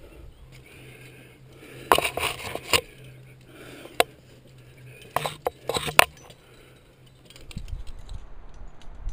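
Metal climbing gear clinking and scraping against rock as a climber moves: a cluster of sharp clicks about two seconds in, a single click around four seconds, and another cluster between five and six seconds. Low rumbling noise comes in near the end.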